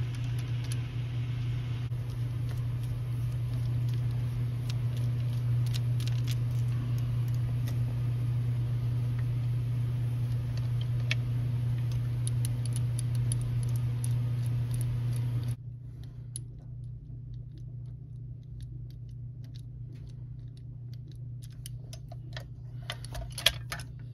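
Small clicks and taps of plastic O gauge model locomotive parts being handled, over a steady low hum and hiss that cuts off suddenly about fifteen seconds in. A sharper click near the end.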